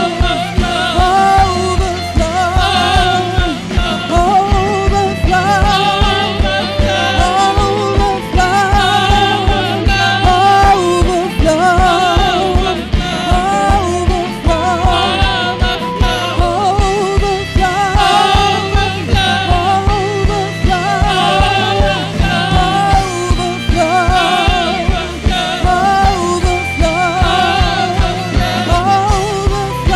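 Live church worship music: a woman singing long, wavering vocal lines over keyboard and a steady drum beat.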